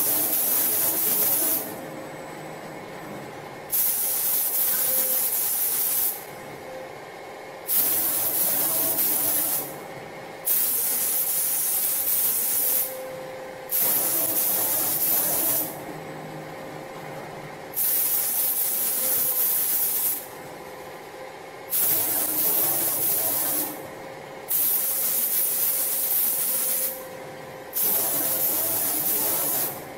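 Five-axis automatic spray painting machine spraying cabinet door panels: the spray gun hisses in bursts of about two seconds, switching on and off about every three seconds as it makes its passes, over a steady machine hum.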